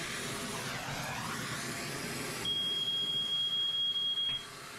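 Oxyacetylene torch flame hissing steadily while brazing copper refrigerant line joints. About two and a half seconds in, a steady high electronic beep starts and holds for about two seconds, then stops.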